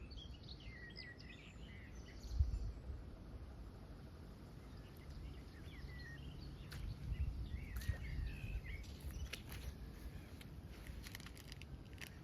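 Small birds chirping and twittering over a steady low rumble, with a louder low bump about two seconds in and another stretch of low bumping around seven to eight seconds.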